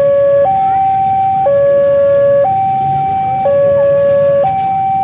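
Railway level-crossing warning alarm sounding a two-tone hi-lo signal, switching between a lower and a higher tone about once a second. It signals that a train is approaching the crossing.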